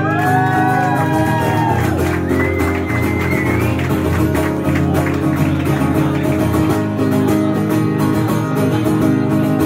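Electro-acoustic guitar strummed in a steady rhythm through a PA, playing a song's intro before the vocal comes in.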